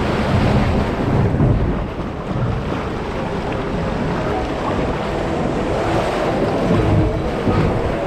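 White water rushing and churning around a round river-rapids raft, a steady loud noise with a deep rumble underneath.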